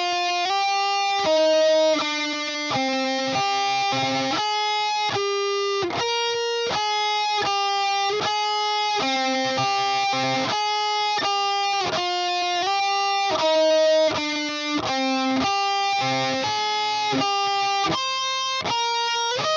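Electric guitar playing a melody: picked single notes and two-note shapes, a new one about every half second, each ringing on until the next.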